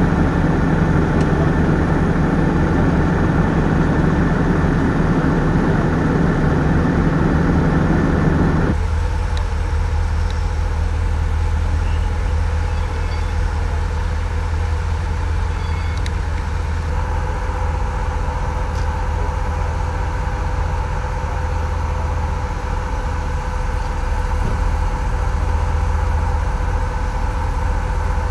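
Emergency vehicles idling: a steady low engine rumble. About nine seconds in, a louder, harsher layer cuts off suddenly, leaving the low rumble and a steady hum.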